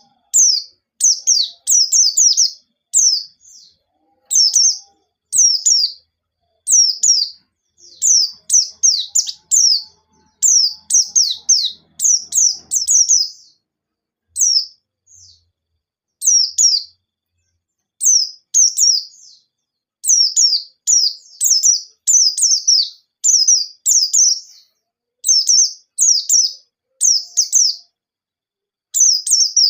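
White-eye (pleci) singing: quick clusters of short, high chirps that slide downward, separated by brief pauses.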